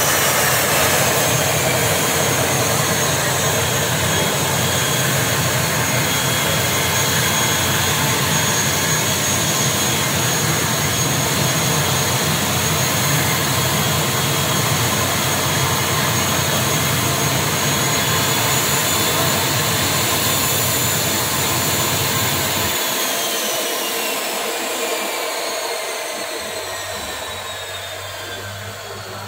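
ATR 72 turboprop engine running with a steady high whine over a deep rumble, then winding down at shutdown. About two-thirds of the way in the whine starts falling in pitch, the rumble drops away soon after, and the sound fades near the end.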